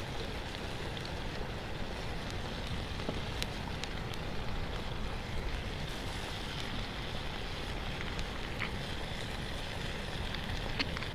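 Steady wash of surf from the sea, with wind rumbling on the microphone. A few faint sharp clicks sound through it, one a little before the end.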